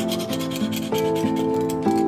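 A steel knife blade scraped along a sharpening rod in quick, even strokes, over background music with plucked notes.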